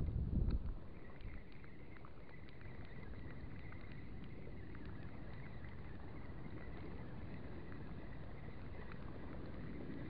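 Steady low noise of wind and choppy water around a small boat, with a louder rumble of wind on the microphone in the first second. A faint thin high whine runs through the rest.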